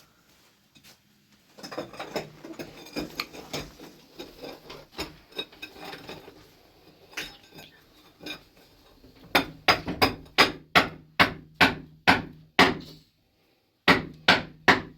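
Hammer striking repeatedly: irregular lighter knocks and clatter at first, then a run of steady hard blows about three a second from about nine seconds in, a brief pause, and more blows near the end.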